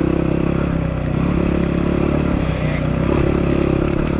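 Dirt bike engine running on the move, its note shifting up and down as the throttle is worked.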